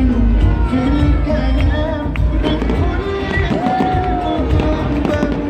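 Loud music with crowd voices mixed in.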